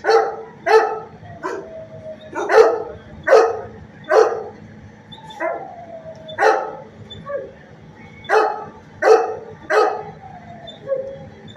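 Dog barking in a kennel: about a dozen sharp barks spaced roughly a second apart, often in pairs, with a few short falling whines between them.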